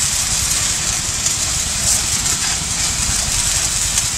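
Small engine of a power sprayer running steadily, with the hiss of the water jet spraying from the wand.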